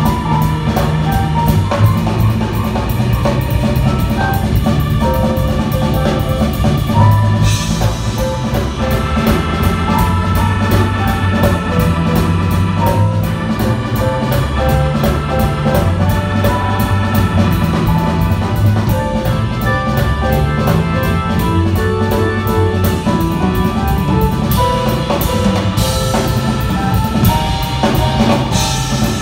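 Small live band playing: a drum kit keeping a steady cymbal beat, electric keyboards playing chords and melodic lines, and a moving bass line underneath.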